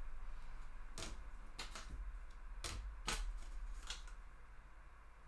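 Faint, scattered light clicks of computer keys and a mouse, about six spread irregularly over a few seconds.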